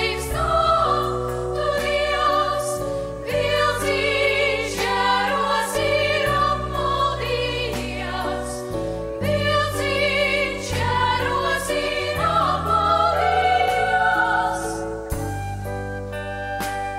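A girls' choir singing with a live band of keyboards, electric guitar, bass guitar and percussion. About fifteen seconds in, the singing stops and a flute solo takes over.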